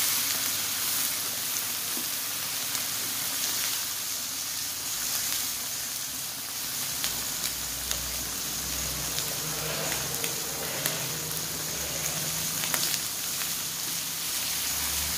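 Meat sizzling in oil on the griddle plate of an electric 2-in-1 hotpot grill: a steady sizzle with scattered small pops and crackles.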